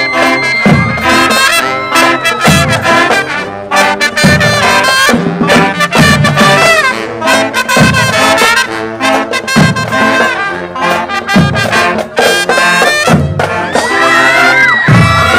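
Marching band playing a brisk pop tune: saxophones and brass carry the melody over a steady low drum beat.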